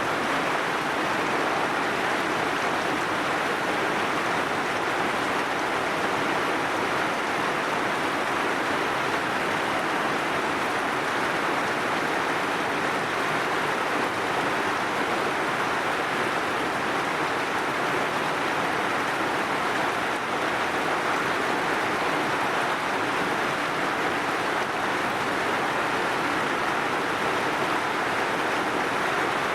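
Heavy rain falling in a steady, even hiss that holds at the same level throughout.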